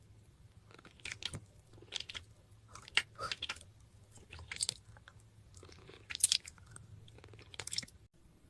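Crunchy bites and chewing into raw vegetables: a series of crisp crunches at irregular intervals, the sharpest about three seconds in and about six seconds in.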